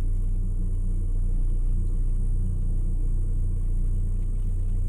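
Truck engine idling: a steady low rumble.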